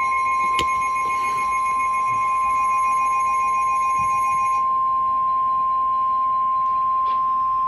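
NOAA Weather Radio's 1050 Hz warning alarm tone: one loud, steady, high-pitched tone that cuts off sharply at the end. It signals that an emergency warning broadcast follows.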